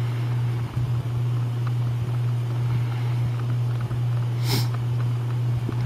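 A steady low hum over a faint background hiss, with one brief, sharper hiss about four and a half seconds in.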